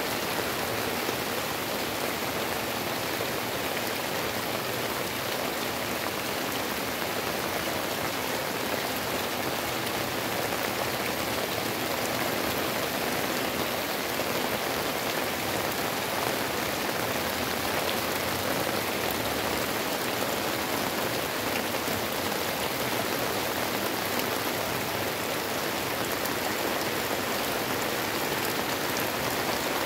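Heavy rain falling in a steady downpour on tree leaves and roofs, an even, unbroken hiss of water.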